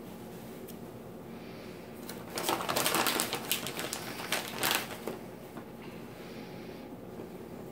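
Plastic food packaging crinkling in a quick run of sharp crackles for about two and a half seconds, starting a little over two seconds in, over faint room tone.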